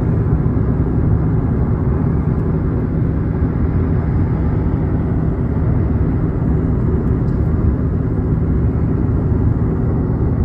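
Steady low rumble of road and wind noise from a moving car.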